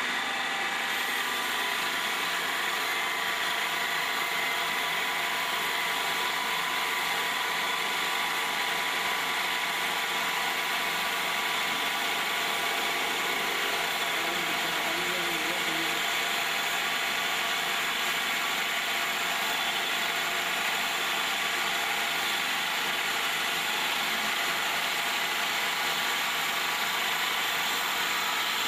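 Automatic wood-turning copy lathe running steadily: a motor whine of several steady pitches over a constant rushing machining noise.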